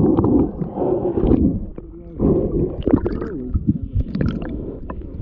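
Sound picked up by a GoPro held underwater in shallow water: muffled gurgling and rumbling of water around the camera housing, with some wavering muffled tones and several sharp knocks.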